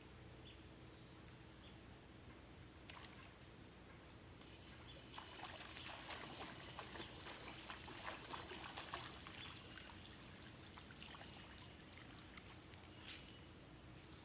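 Faint water splashing and dripping in quick crackly bursts, busiest from about five to nine seconds in, over a steady high insect drone.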